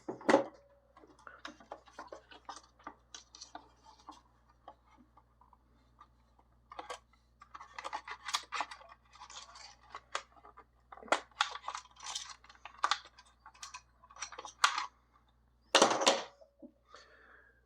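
Hands working on a disassembled chronograph's plastic housing and circuit board: irregular light clicks, taps and scrapes of small parts, in denser clusters about halfway through and near the end. A faint steady electrical hum lies underneath.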